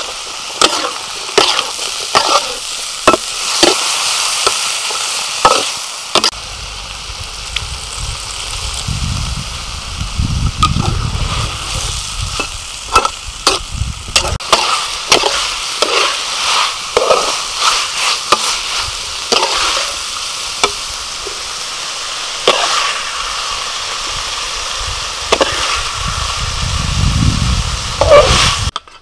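Stir-fry sizzling in a steel wok, with a metal spatula scraping and clanking against the pan again and again.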